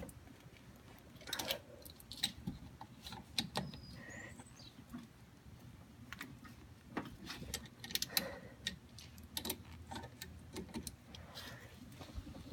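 Brake caliper and pad hardware handled by hand: scattered light metallic clicks and taps at irregular times.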